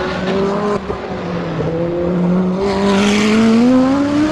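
Ferrari 599XX race car's V12 engine running at speed on a track, a steady note that climbs in pitch through the second half as the car accelerates.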